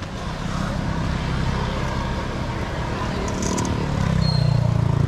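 Motor vehicle engine running close by in street traffic, a low rumble that grows louder about four seconds in.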